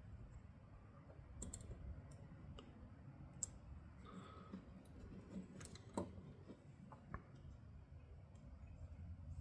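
Faint, scattered clicks and light taps of small metal parts as a 1/4 inch ratchet head is worked on by hand with a razor blade, over a low hum.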